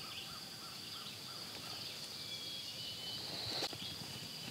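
Field-edge woodland ambience: a steady high-pitched insect drone with a quick series of short chirps in the first second and a couple of brief whistled bird notes midway, plus one short sharp sound about three and a half seconds in.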